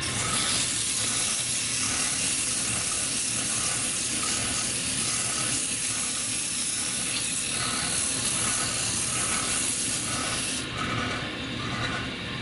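Sandpaper pressed against a wooden spindle spinning on a wood lathe: a steady hiss of abrasive on wood over the hum of the running lathe. The hiss stops near the end, when the paper comes off the wood.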